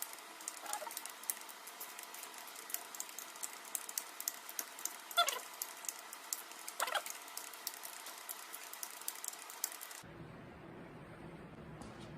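Rapid, quiet clicking of a ratchet wrench running down the valve body bolts on a Turbo 350 transmission. There are two short falling squeaks about halfway through.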